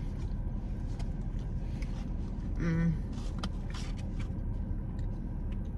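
Steady low rumble of a car with its engine running, heard from inside the cabin, with a few light clicks and one brief voice sound about halfway through.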